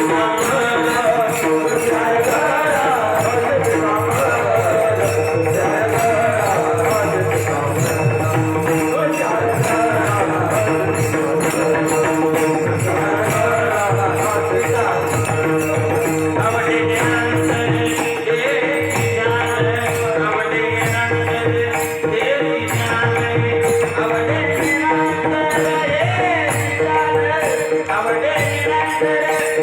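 Marathi varkari bhajan music: singing over a steady held drone, with jingling hand cymbals keeping an even beat and a drum underneath.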